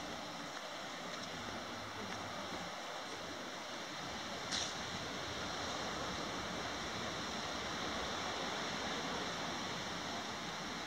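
Gentle surf washing on a sandy beach, a steady rushing noise that grows slightly louder about halfway through, with one brief click about four and a half seconds in.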